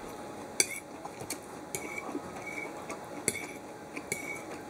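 A metal fork clinking and scraping against a ceramic plate as food is cut and picked up. There are several sharp clinks at irregular intervals, the loudest just over half a second in.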